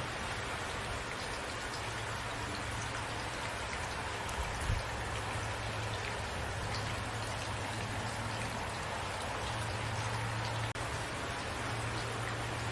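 Steady rain falling: an even hiss with scattered individual drops ticking, over a steady low rumble, and one slightly louder drop about five seconds in.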